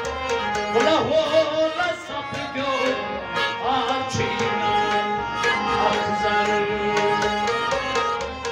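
Sufi devotional music: a harmonium holds steady chords while a rabab is plucked in a quick, driving rhythm, and a man's voice sings long phrases that bend in pitch.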